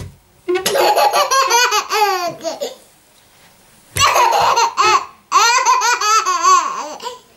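Baby laughing hard in three bursts, with short quiet pauses between them.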